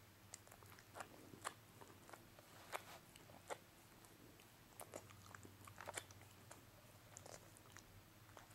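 Welsh corgi eating: irregular crisp crunches and chewing as its jaws bite through food, about a dozen sharp bites with short gaps between.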